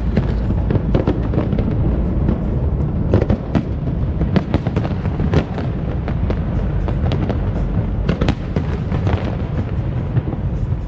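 Fireworks display: a dense, irregular run of sharp cracks and bangs over a constant low rumble.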